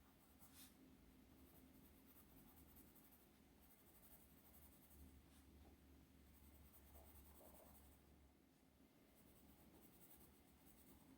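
Faint scratching of a 0.9 mm mechanical pencil's graphite lead writing on paper, in several stretches of strokes with short pauses between them.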